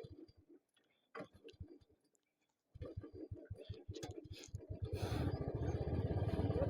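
Royal Enfield Classic 350's single-cylinder engine being restarted after stalling at high altitude. Two short stuttering tries come near the start and about a second in. It then catches about three seconds in and runs with an even thump of about seven beats a second, getting louder and fuller about five seconds in.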